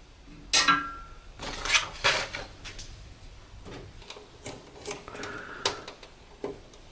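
Scattered clicks, taps and rustles of hands working a wire into the plastic cable raceway of an electrical control panel.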